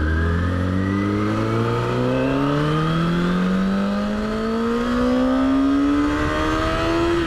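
Motorcycle engine accelerating hard through one gear without a shift, its pitch climbing steadily for about seven seconds, over wind and road noise.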